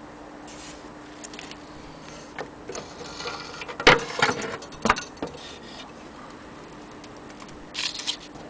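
Clicks and knocks from a vintage film projector's sheet-metal lamp house being handled, with two sharper clanks in the middle and a few lighter clicks near the end, over a faint steady hum.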